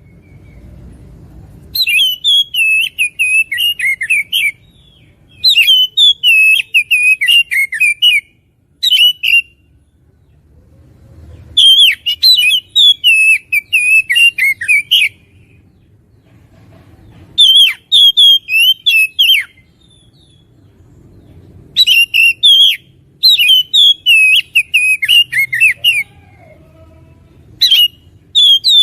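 Oriental magpie-robin (kacer) singing loudly, in bursts of rapid, varied whistles and chirps. Each burst lasts one to three seconds, and there are about eight of them with short pauses between.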